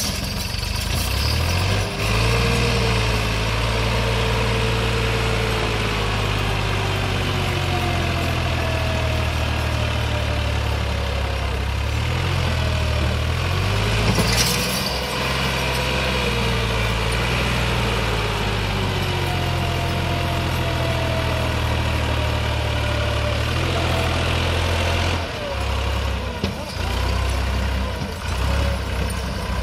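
Massey Ferguson 260 Turbo tractor's diesel engine working hard, pulling a heavily loaded soil trolley up a dirt slope. Under the steady low engine note a higher whine slides up and down in pitch. A short hiss comes about halfway, and near the end the engine note dips and turns uneven.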